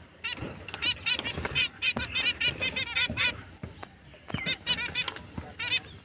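Pet finches chirping in quick runs of short, repeated high notes, with a brief lull about four seconds in and a few light clicks.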